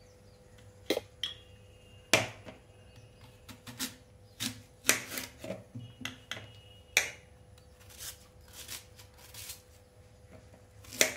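Kitchen knife peeling and cutting a fruit held in the hand: irregular soft scrapes of the blade through the flesh, with a few sharper clicks.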